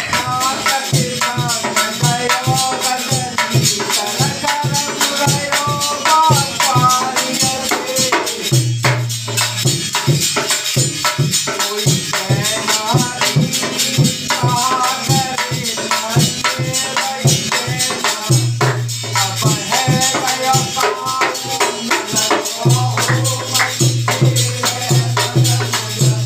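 A Holi folk song: men singing in phrases over quick, driving dholak barrel-drum strokes, with a constant bright jingle of hand percussion; deeper drum tones come in for a few seconds at a time.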